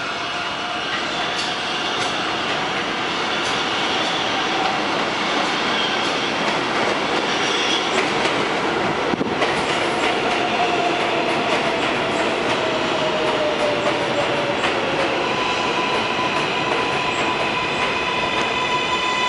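R188 subway train pulling into a station and slowing: continuous wheel and running noise on the rails, with a motor whine that falls in pitch as the train slows. Steady high-pitched tones join in over the last few seconds as it comes nearly to a stop.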